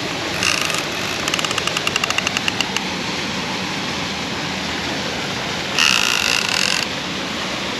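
Fishing reel's drag clicking as line is pulled off. There is a short burst, then a fast string of clicks that slows and stops. About six seconds in comes a steadier buzz of about a second. The sign of a hooked wels catfish taking line against the drag.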